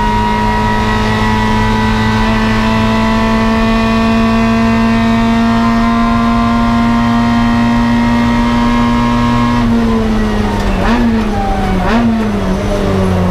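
Toyota 4A-GE twin-cam four-cylinder of a KE70 Corolla race car at full throttle, heard from inside the cabin, pulling slowly higher in pitch. About ten seconds in the revs drop as it lifts off, followed by two quick throttle blips on downshifts.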